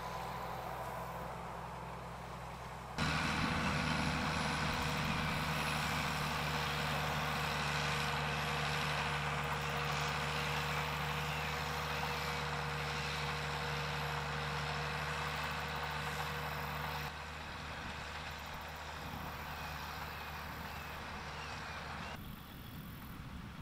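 Farm tractor engines and peanut harvesting machinery running steadily as diggers lift the peanut vines and a peanut combine works the rows. About three seconds in, a louder close-up of the digger's machinery takes over, with a steady hum; it drops back to a quieter engine sound after about seventeen seconds.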